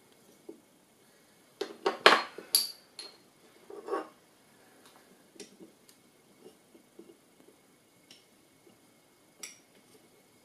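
Hard clinks and knocks of mounted sharpening stones and the Edge Pro Apex sharpener's metal parts being handled: a quick cluster of sharp clinks about two seconds in, one with a short bright ring, then faint small taps and one more sharp click near the end.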